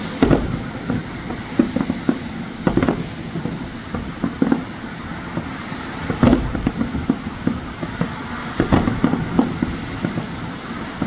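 Fireworks bursting: an irregular string of bangs and crackles, with several louder clusters of bangs a couple of seconds apart.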